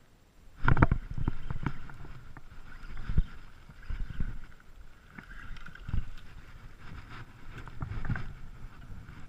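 Irregular knocks and splashes around a small fishing boat, starting suddenly just under a second in, with the loudest hits at the start and a few more spread through.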